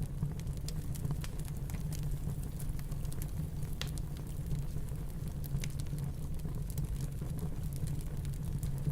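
Wood fire crackling in a fireplace, with irregular small pops and snaps, over a steady low rumble of snowstorm wind.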